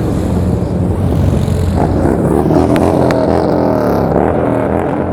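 Motorcycle engines running in street traffic, revving up and down repeatedly from about two seconds in over a steady low idle.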